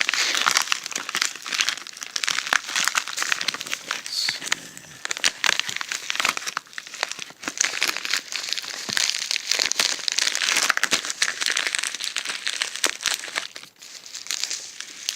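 Mailer packaging being handled and worked at, a continuous loud crinkling and crackling of rustling material.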